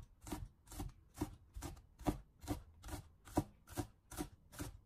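Chinese cleaver chopping scallions into rings on a wooden cutting board: a steady series of sharp knife strokes, about two a second.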